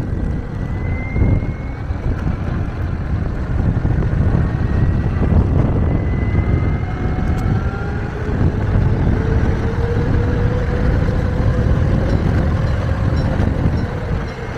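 Electric mountainboard riding over asphalt: a steady rumble of pneumatic tyres rolling on the road and wind, with a thin electric-motor whine that slides up in pitch as the board picks up speed.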